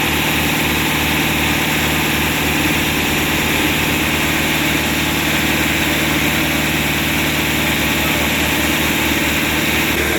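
Concrete mixer truck's engine running steadily at a constant speed, with a low, even hum.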